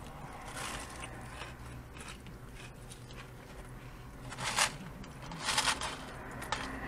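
Biting into and chewing a crunchy fried hush puppy, with two short, louder crunchy sounds about a second apart, roughly four and a half and five and a half seconds in.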